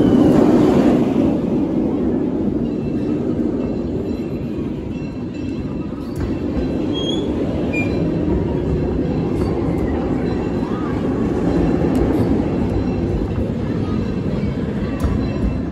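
Open passenger cars of a narrow-gauge steam train rolling past, a steady rumble and clatter of wheels on the rails, with a few faint squeaks and the riders' voices.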